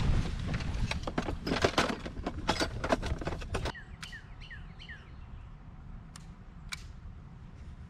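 Footsteps and knocks on a fiberglass bass boat's deck over a low wind rumble. Then a small bird gives about five quick chirps, each sliding down in pitch, followed by two faint clicks.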